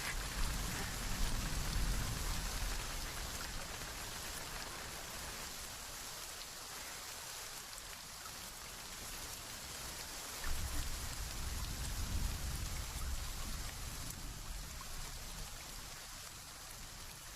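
Steady rain falling as an even hiss, with low rumbling swells near the start and again about two-thirds of the way through.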